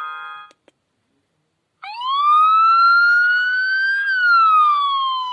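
A myPhone Rumba mobile phone playing its built-in alert tones. A synthesized chord tone cuts off about half a second in, and after a short silence a siren-like electronic tone glides slowly up in pitch for about two seconds, then back down.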